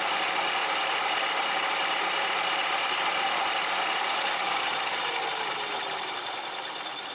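Bridgeport vertical milling machine running while milling a weld-built-up coupling jaw. Over the last couple of seconds its pitch and level fall as the spindle winds down.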